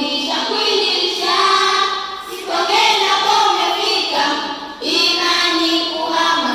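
A children's choir singing a poem together, in phrases of a second or two with short breaks between them.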